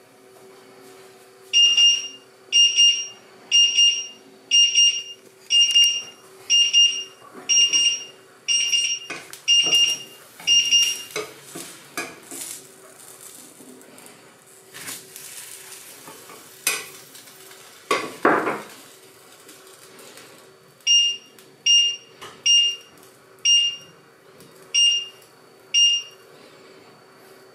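A glass-top hob's touch controls beeping: short high beeps about one a second, about ten in a row, then seven more near the end, as the buttons are pressed. In between, some clatter of cookware and a brief louder rush of noise.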